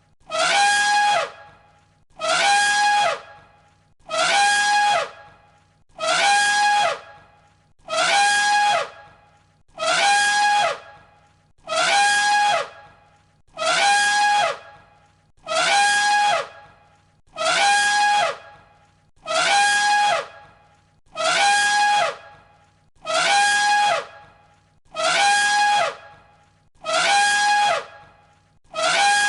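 Elephant trumpeting: the same short, brassy call repeated as an identical loop about every two seconds, each call a held tone that drops in pitch as it ends.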